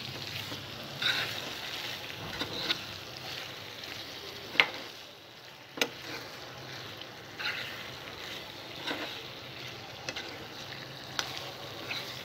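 Bottle gourd pieces and masala paste frying in oil in a pan, sizzling steadily while a spatula stirs them. The spatula knocks and scrapes against the pan every second or so, the sharpest knock coming about halfway through.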